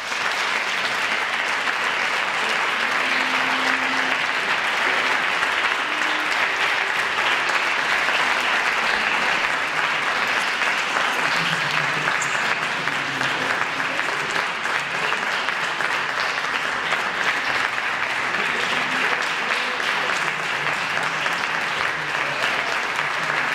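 Audience applauding, a steady, sustained clapping that does not fade.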